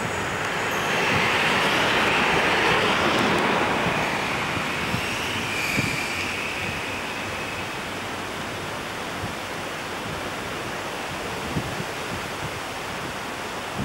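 Road traffic: a car passes close by, its tyre and engine noise swelling about a second in and fading away over the next few seconds, over a steady hiss of traffic and wind.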